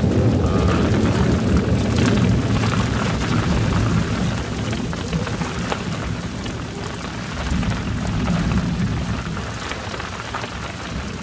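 Gusty wind buffeting the microphone in a low, uneven rumble, over a hiss of rain; the gusts ease somewhat in the second half.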